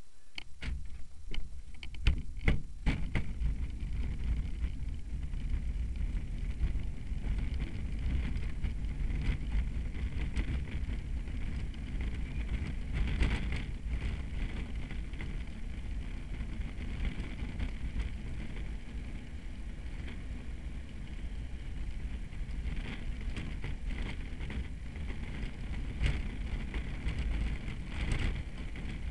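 Unpowered soapbox cart coasting fast down an asphalt road, heard from on board: a steady low rumble of wind on the microphone and wheels on the tarmac. A run of sharp knocks and rattles comes in the first three seconds as the cart sets off.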